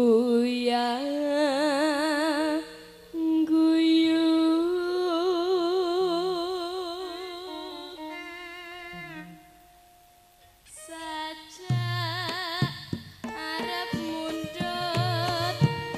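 A female campursari singer holds long, wavering notes with wide vibrato and slides between them over almost no accompaniment. About twelve seconds in, the band comes in under her voice with drums, bass and sharp struck gamelan notes.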